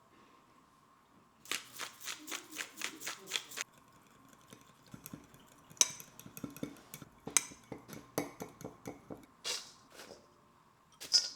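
Dressing being mixed in a bowl: a run of about nine quick, even strokes of a utensil, about four a second, then irregular clinks and taps of the utensil against the bowl.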